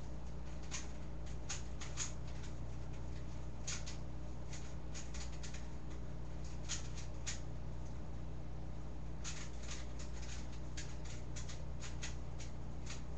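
3x3 Rubik's cube being turned, faint plastic clicks of the layers, some single and some in quick runs, with short pauses between.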